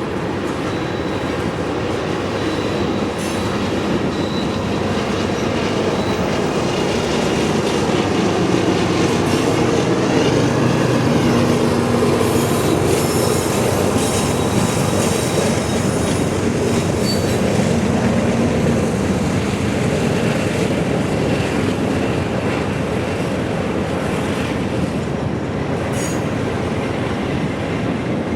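A CSX freight train's cars rolling steadily past at track level, with wheels clicking over rail joints and a thin, high wheel squeal at times.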